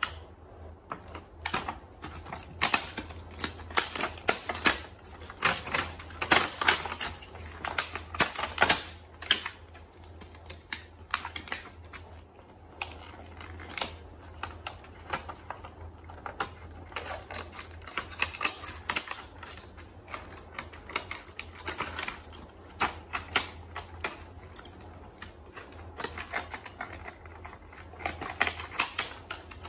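Scissors snipping and clear plastic wrapping crinkling as it is cut and pulled off a plastic toy case: a quick, irregular run of clicks and crackles over a low steady hum.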